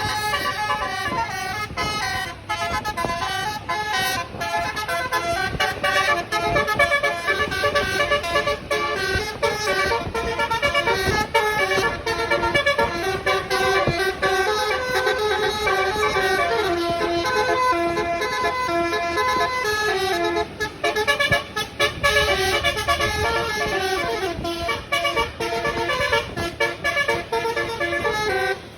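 Tour bus's telolet basuri horn, a multi-tone musical horn, playing a tune as a run of held notes that step from pitch to pitch.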